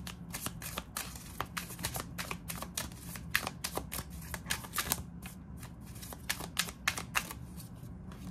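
Tarot deck being shuffled by hand: a quick, irregular run of light snaps and flicks of card edges that pauses about five seconds in, then picks up again with a few more.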